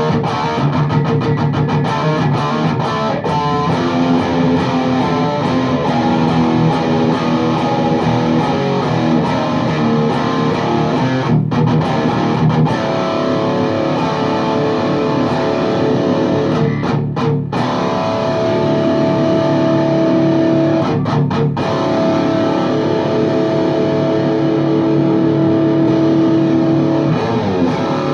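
High-gain distorted electric guitar played through a VHT Deliverance D60 tube amp with KT88 power tubes, miked on a 4x12 cabinet with Vintage 30 speakers. It plays chugging riffs with a few brief stops, and the second half has longer held notes.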